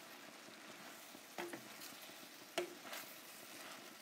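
Wooden spoon stirring pasta and vegetables in a stainless steel frying pan over a faint sizzle, with two soft knocks of the spoon against the pan.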